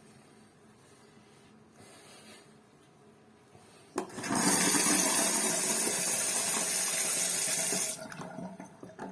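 Water running hard from a mixer tap, turned on with a click about four seconds in and shut off about four seconds later.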